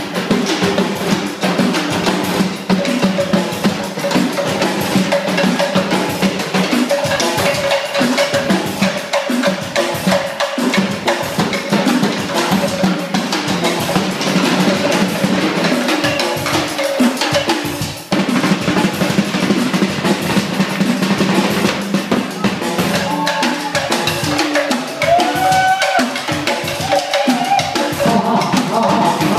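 Loud dance music driven by fast, busy drumming and percussion over a steady low tone, with a melody line standing out more clearly near the end.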